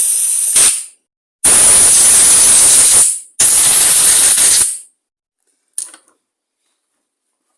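Pressurised spray hissing into a small-engine carburettor's fuel pickup tube to clean it out: three bursts, the last two about one and a half seconds each, then a small click near six seconds in.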